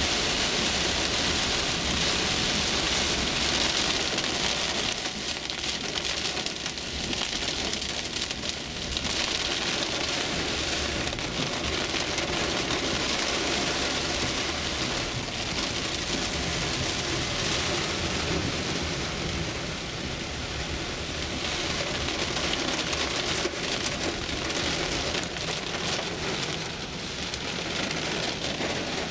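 Heavy rain pelting a car's windshield and windows, heard from inside the cabin as a dense, steady hiss that eases a little for a few seconds about five seconds in.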